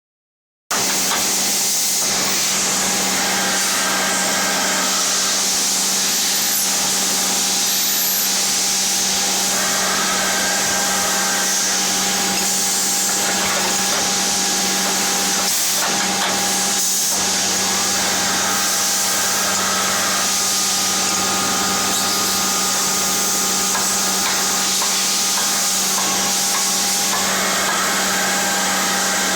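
CNC milling machine running steadily as it machines a licence plate: a constant whine and hiss from the spindle and cutter, with higher tones coming and going as the cutter engages. It starts abruptly just under a second in.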